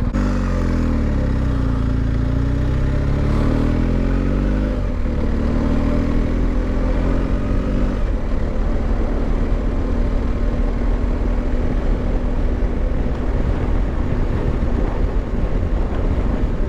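Motorcycle engine running under way, its revs rising and falling over the first few seconds, then holding steady before settling into an even cruise.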